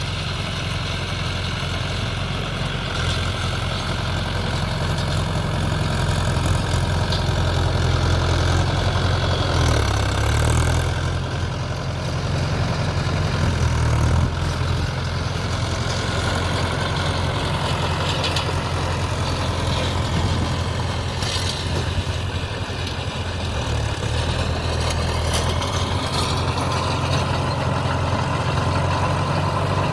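Mahindra Yuvo 575 DI tractor's diesel engine running steadily, its note shifting briefly about ten seconds in.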